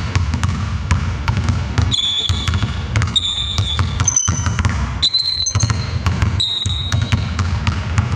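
AI-generated sound effect from the TangoFlux text-to-audio model: a basketball bouncing on a court with squeaking shoes. From about two seconds in, several short high-pitched blasts of a referee's whistle come in, each about half a second long.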